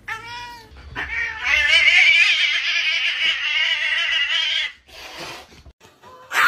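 A cat yowling at a dog: a short call, then a long wavering caterwaul lasting nearly four seconds, the angry warning of a cat squaring up to a dog.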